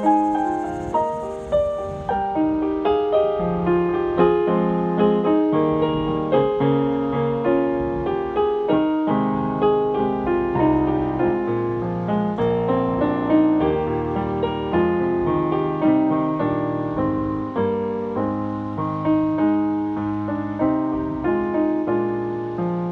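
A digital keyboard in a piano voice, played through a Roland keyboard amplifier, plays a continuous instrumental piece of chords and melody notes, each note struck and then dying away.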